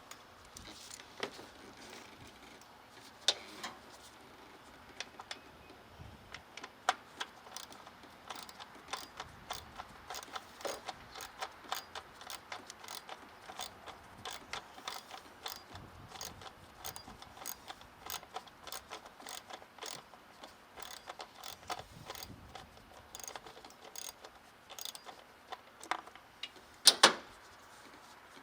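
Hand ratchet wrench clicking in quick runs as a socket turns bolts, with a few sharper metal knocks of tools, two of them loudest near the end.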